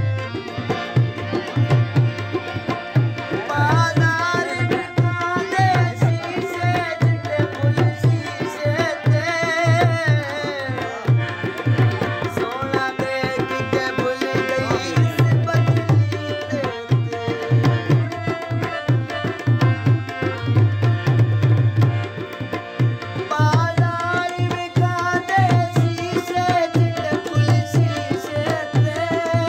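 A man sings a folk song to a harmonium, with a hand drum keeping a steady beat. The voice comes in about three seconds in and drops out around eleven seconds, leaving the harmonium and drum to carry on. It returns near the end.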